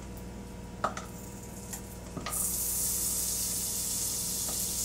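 Butter dropped into a hot pan begins sizzling a little over two seconds in, a steady high hiss after a few light clicks.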